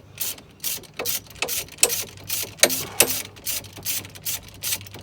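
Hand ratchet wrench clicking in quick repeated strokes, about three a second, as it tightens a brake caliper sleeve-pin bolt.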